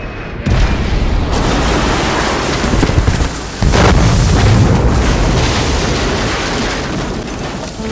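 Explosion of a crashing airliner, a loud, dense rumbling noise. It comes in suddenly about half a second in, a heavier blast hits about three and a half seconds in, and then it slowly fades.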